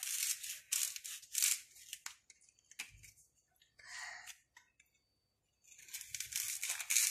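Knife slitting a raw sweet potato lengthwise, a quick run of short crisp cutting strokes through the skin and firm flesh, pausing for a couple of seconds midway and then starting again.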